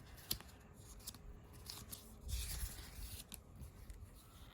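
Faint handling of the paper and cardboard packaging of an AirPods Pro box: light clicks and rustling, with a louder rustle about two and a half seconds in.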